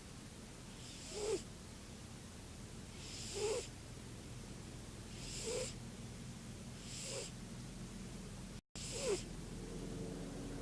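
A sleeping cat snoring: five breathy, wheezy snores about two seconds apart, each with a short squeaky whistle. The sound cuts out for a moment shortly before the last snore, and a steady hum comes in near the end.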